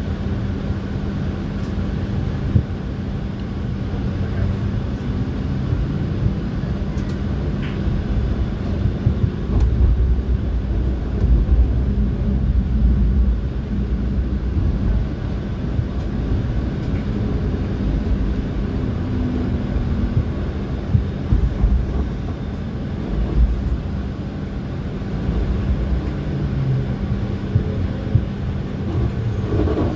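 TTC streetcar running along the street: a steady low rumble with a constant low hum, growing louder for a few seconds around the middle, with a few brief knocks.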